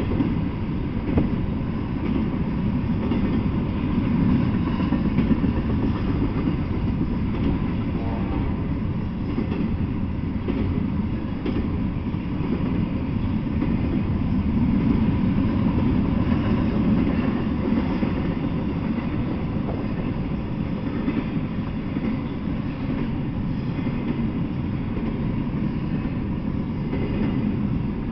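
Double-stack intermodal freight train rolling past at a steady speed: a continuous rumble of the loaded well cars, with wheels clicking over the rails.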